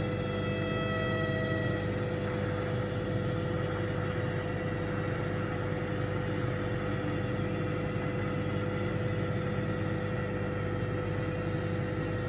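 Microwave oven running with a steady hum. Over it, a thin whistling squeal from steam escaping the sweet potato cooking inside stops about two seconds in.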